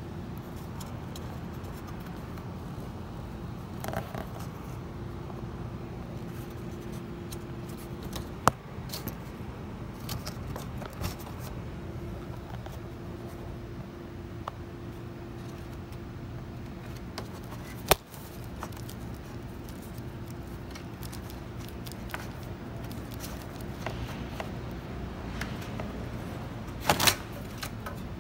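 Scattered small metal clicks, scrapes and clinks of hand work on parts, with two sharp clicks and a short clatter near the end, over a steady low hum.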